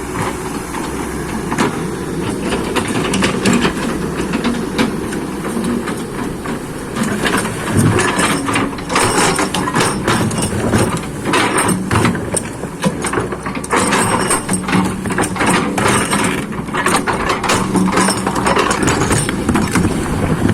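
Excavator diesel engine running steadily. From about seven seconds in, repeated sharp knocks and clatter come through, typical of the bucket working against rock and mud.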